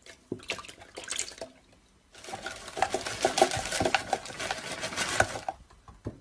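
Pieces of food poured from a bag into a plastic blender jar. A few rustles and knocks, then about three seconds of dense clattering and rattling as the pieces hit the jar, stopping suddenly.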